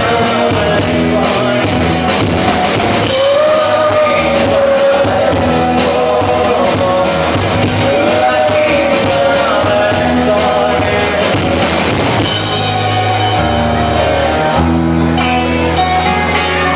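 Live rock band playing: a male lead vocalist singing long held notes over strummed acoustic guitars, electric guitar and a drum kit, amplified through the PA.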